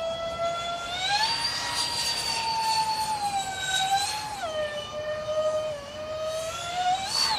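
Electric ducted fans of a Freewing SU-35S RC model jet whining in flight. The pitch rises about a second in as the throttle is opened, holds high, falls back after about four seconds, and climbs again near the end with a brief rush of air.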